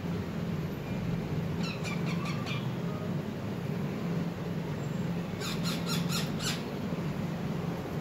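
Rose-ringed parakeets giving two short bursts of rapid chattering calls, about two seconds in and again about five and a half seconds in.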